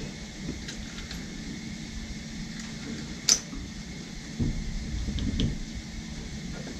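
Hand wrench working on an engine's idler pulley bolt: a single sharp metallic clink about halfway through, then a few dull knocks and light ticks, over a faint steady hum.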